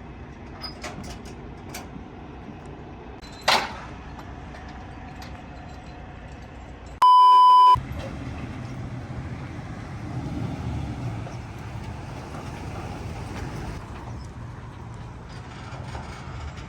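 Steady low rumble of a vehicle running, with a short sharp sound about three and a half seconds in. About seven seconds in comes a loud single-pitch bleep lasting under a second that blanks out the other sound, an edited-in censor bleep.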